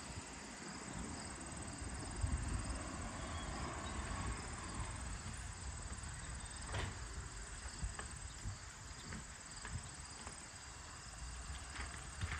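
Steady high-pitched chorus of crickets and other insects on a late-summer evening, over a low rumble. There is a single sharp click about seven seconds in, and a few light ticks near the end.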